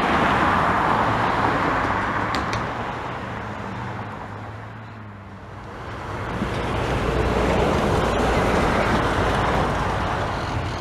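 A low-wing single-engine piston light aircraft at takeoff power just after liftoff, its engine and propeller drone fading as it climbs away. From about six seconds in, the engine of a Diamond DA-20 Eclipse runs at taxi power, growing louder as the plane taxis closer, then easing slightly near the end.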